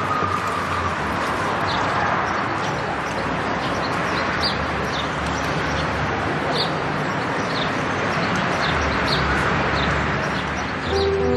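City park ambience: a steady background hubbub with small birds chirping, short high chirps coming every second or so.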